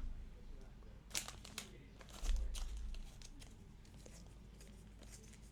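Baseball trading cards being handled: a few quick rustles and clicks of cards sliding and being set down, with a heavier low bump about two seconds in.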